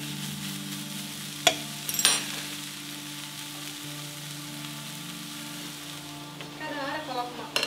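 Shredded chicken sizzling as it fries in a nonstick pan, with a fork clinking and scraping against the pan twice about one and a half and two seconds in. Near the end there is a clatter of dishes.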